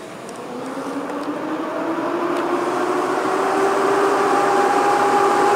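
Siemens Vectron electric locomotive approaching, growing steadily louder, with a two-note whine that slowly rises in pitch over the rumble of the train.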